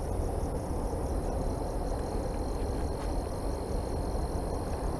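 Outdoor night ambience at a rural railroad crossing: a steady low rumble and rushing, with a faint, high chirping that repeats about three times a second.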